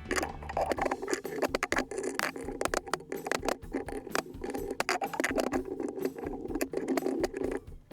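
Rapid, irregular metallic clicking, tapping and rattling of hand tools working on a driveshaft universal joint while its retaining rings are removed.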